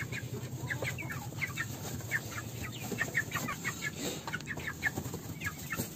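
Young Peruvian gamecocks (pollones) peeping and clucking in a pen: many short, high chirps, several a second, overlapping from different birds.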